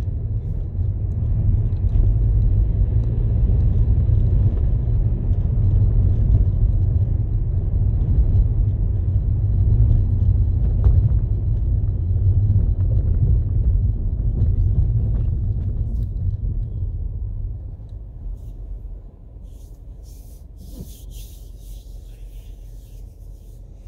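Low rumble of a car's engine and tyres heard from inside the cabin while driving. It dies away about eighteen seconds in as the car slows to a stop, leaving a much quieter hum.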